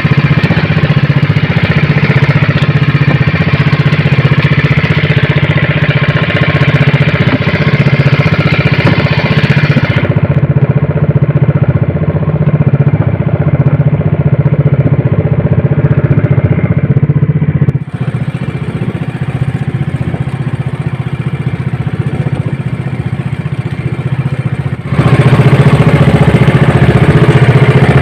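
Engine of a motorized outrigger fishing boat running steadily at cruising speed while underway. The engine is loud throughout, and its level drops for a stretch after about 18 seconds before returning near the end.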